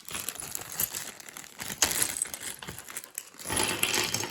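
Packaging crinkling and rustling as small toy pieces are handled and pulled out, with irregular crackles that swell about two seconds in and again near the end.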